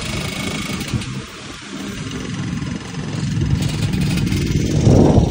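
Yamaha RXZ two-stroke motorcycle engine under way, easing off about a second in, then accelerating with its note rising to its loudest near the end, over a steady rush of riding noise.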